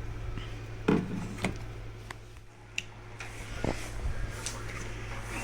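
Steady low electrical hum with half a dozen light clicks and knocks scattered through it, the strongest about a second in.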